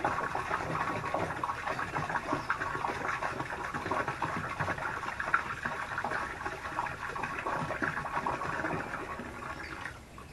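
Red Kool-Aid poured from a plastic jug into water in a plastic bin: a steady splashing pour that stops near the end.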